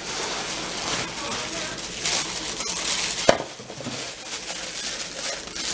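Thin plastic bag crinkling and rustling as a wrapped item is handled and pulled from a cardboard box, with one sharp click about three seconds in.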